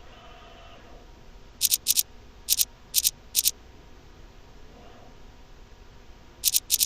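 Sharp, high clicks, each one doubled, from a CNC video measuring machine as it runs its measuring program automatically. Five come in a quick run about one and a half to three and a half seconds in, and two more come near the end. A faint motor whine sounds briefly at the start.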